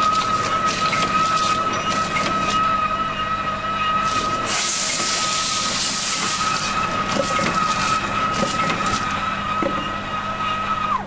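Rasch RHE 2 chocolate-egg foil-wrapping machine running: a steady high whine under rapid mechanical clicking and clatter. A loud hiss lasts about two seconds near the middle. The whine cuts off at the very end.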